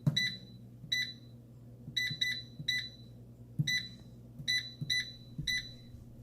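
Air fryer's digital control panel beeping as its buttons are pressed to set the temperature: about nine short, high beeps at irregular intervals, some in quick pairs.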